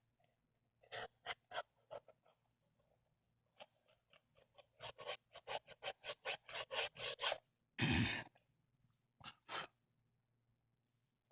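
A small tool scraping and rubbing old adhesive and dirt off the edges of a Samsung Galaxy S5's frame, in short strokes of about three a second. About eight seconds in comes one louder, brief rush of noise.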